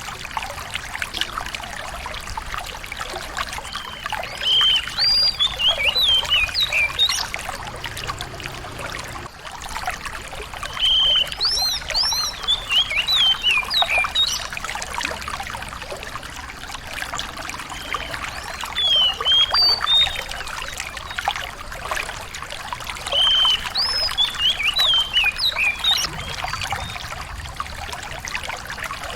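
A small songbird repeats a short phrase of sharp chirps and whistled notes, about every six or seven seconds, over a steady trickle of running water.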